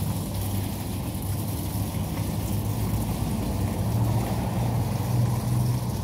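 Steady low mechanical hum with a hiss of noise over it, running without a break.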